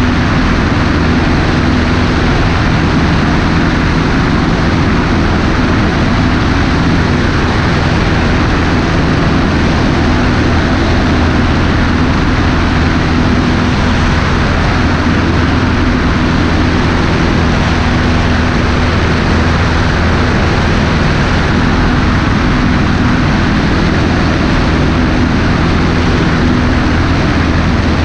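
Cessna 150's Continental O-200 four-cylinder engine and propeller running at steady power in flight, heard from outside under the wing with heavy wind rush over the microphone. It is loud and even, with no change in pitch.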